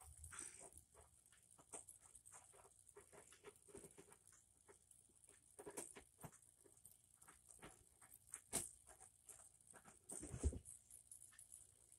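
Faint, quick lapping of a cat drinking water from an aquarium, with a sharper click and then a soft thump near the end.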